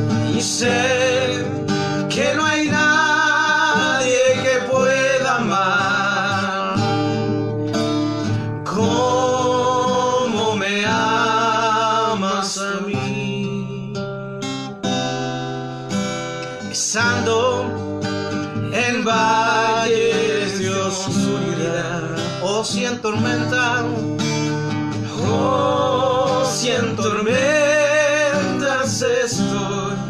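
Acoustic guitar strummed steadily under two male voices singing a slow Spanish worship song, the held notes wavering with vibrato.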